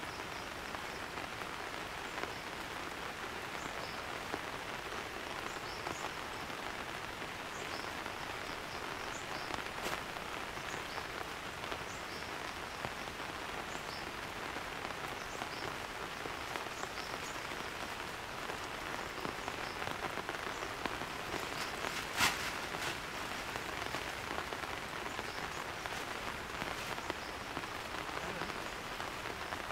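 Heavy rain falling steadily, a constant hiss of drops, broken once about two-thirds through by a single sharp tap.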